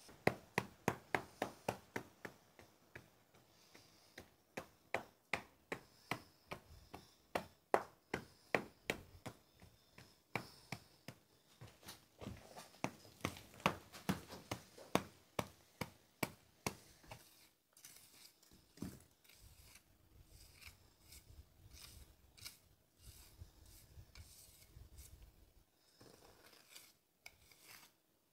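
Hand scraping of mortar while pointing joints in a stone wall: a pointing trowel scrapes across a mortar hawk and the stone joints. Quick scrapes come about two or three a second for the first half, then turn slower and quieter.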